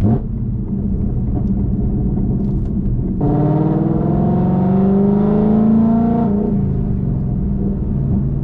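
2019 Ford Mustang GT's 5.0-litre Coyote V8, breathing through Kooks headers and a Borla ATAK cat-back exhaust, running steadily, then accelerating hard for about three seconds with its pitch rising, before the throttle is lifted and it settles back to a steady run.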